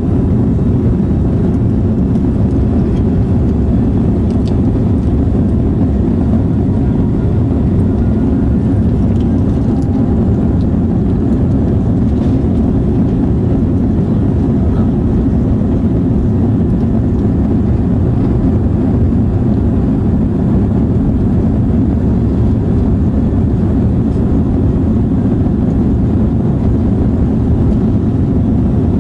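Steady low roar inside the cabin of an Airbus A340-300 climbing after takeoff: its four CFM56 turbofan engines and the rush of air over the fuselage, even and unchanging.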